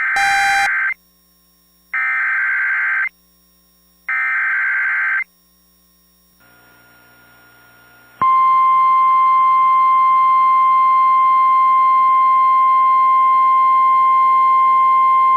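Emergency Alert System SAME header: three loud, warbling digital data bursts of about a second each, two seconds apart. After a few seconds of near quiet, a steady single-pitch NOAA Weather Radio warning alarm tone starts sharply about eight seconds in and holds, announcing a tornado warning.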